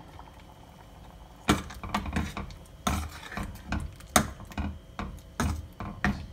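A steel ladle stirs curry in a pressure cooker, knocking and scraping against the pot's sides in a run of sharp clinks about two or three a second. The clinks start about a second and a half in.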